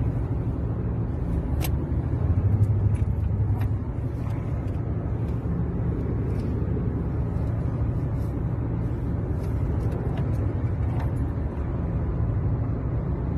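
Steady low rumble of a Kia car driving, heard from inside the cabin, with a few faint clicks.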